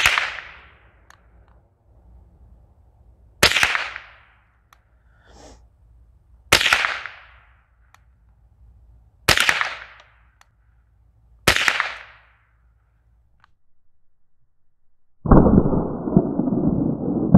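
Five sharp .22 LR rifle shots from a Marlin Model 60 semi-automatic, a few seconds apart, each a crack with a brief ringing tail. A few seconds before the end, a long, low rumble begins: a shot played back slowed down in a slow-motion replay.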